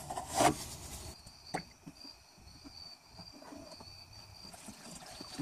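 A brief burst of ratchet and metal handling noise as the transmission pan drain plug is tightened, then crickets chirping in a steady high pulse, with faint glugging of used transmission fluid poured from a drain pan into a plastic jug.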